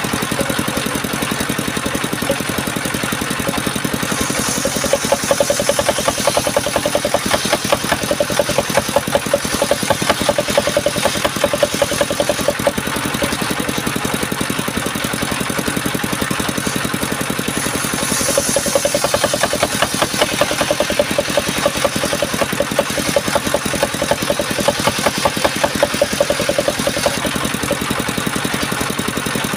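Engine-driven mobile circular sawmill running steadily, its blade cutting through timber twice: from about 4 to 13 seconds in and again from about 18 to 27 seconds, each cut louder and with a high hiss over the engine.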